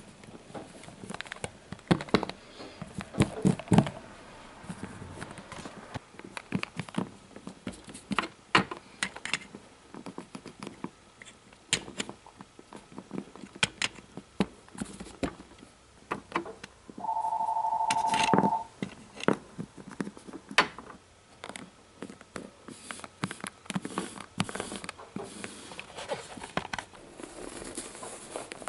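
Small plastic toy figures tapped, knocked and shuffled on a hard tabletop, irregular clicks and thunks with hand-handling noise. About seventeen seconds in, a steady electronic tone sounds for about a second and a half.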